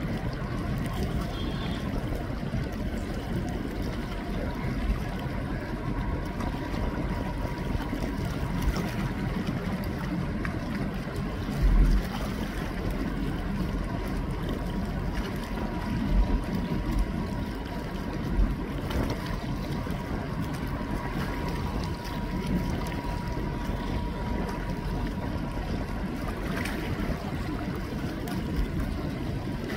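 Steady wash of water and wind on open water, with a faint steady tone running through it and a few low buffets of wind on the microphone.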